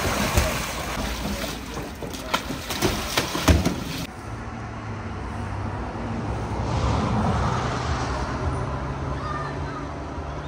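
Live carp sliding out of a drum tank on a pickup and dropping into a pool, with wet knocks and splashes. About four seconds in, the sound cuts to road traffic: a steady low engine hum, with a vehicle passing.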